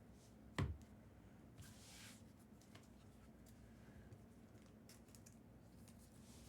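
Quiet handling of trading cards and pack material, with a single sharp knock a little over half a second in, a soft rustle about two seconds in, and a few faint clicks.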